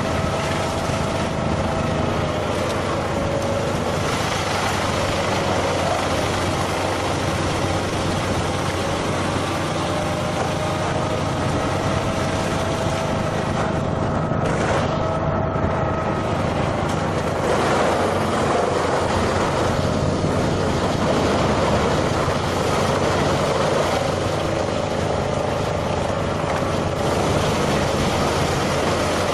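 A heavy vehicle's engine running steadily, with a faint wavering whine over it.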